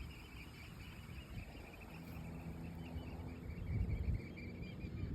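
Wind buffeting the microphone in irregular low gusts, strongest about four seconds in.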